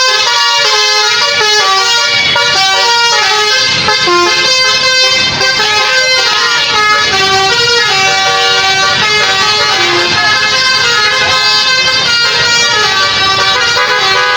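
Telolet basuri multi-tone bus air horns playing a melody, the notes stepping up and down every fraction of a second without a break.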